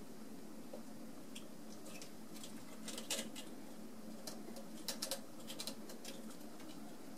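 Cats and kittens playing: a scatter of light clicks and scratches from claws and toys, bunched about three seconds in and again around five seconds in, over a steady low room hum.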